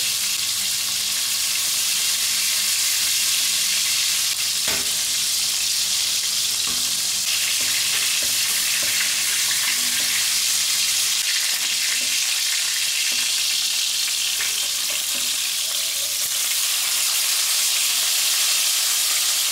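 Slices of tambakol (tuna) deep-frying in hot cooking oil in a pan, a steady sizzle, with one light knock about five seconds in.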